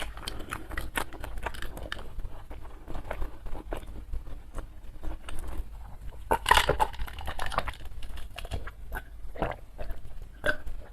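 Close-miked chewing and crunching of crisp food, with irregular bites and wet mouth clicks, and a louder burst of crunching about halfway through.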